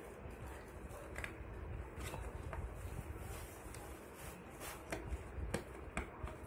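Hands working a fabric seat cover over the moulded plastic seat of a baby walker: scattered rustles of cloth with short clicks and taps of plastic, a few sharper ones near the end.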